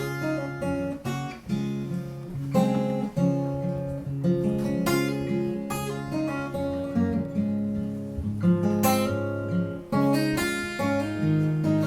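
Acoustic guitar playing an instrumental break between sung verses of a folk song, with repeated strums and ringing notes.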